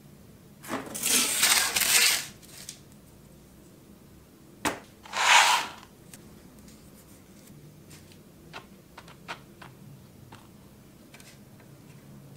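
Handling noises on a workbench as a cardboard sheet, the rusty twisted steel bar and a plastic cup are set down. There is a rustling scrape lasting over a second, then a sharp knock, a second shorter scrape, and a few light taps.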